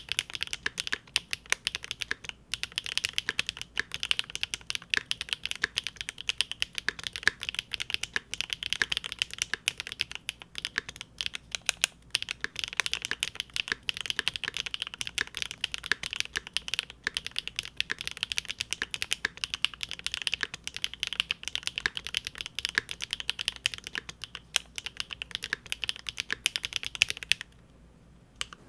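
Fast, continuous typing on a Big Whale custom mechanical keyboard with GEON Raw Zero switches on a polycarbonate plate, a dense stream of key strokes. The typing stops near the end.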